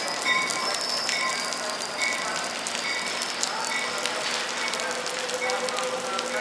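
A train bell ringing in a steady rhythm, about one strike a second, over a steady hiss.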